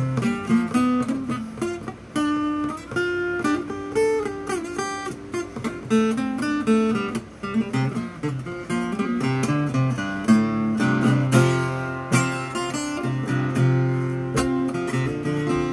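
Acoustic guitar played with a flatpick: a quick run of single picked notes over ringing bass notes.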